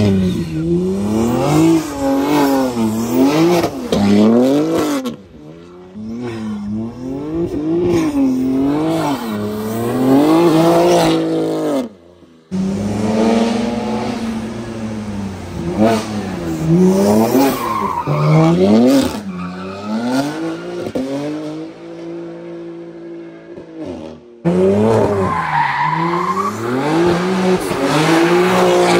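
BMW G80 M3's twin-turbo inline-six revving up and falling back again and again as the car is driven sideways through hairpins, with tyre squeal. The sound breaks off abruptly three times between separate passes.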